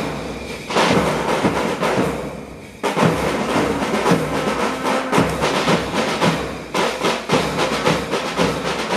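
School band's drums playing a dense run of rapid strokes. The drumming thins out about two seconds in and comes back strongly just before the three-second mark.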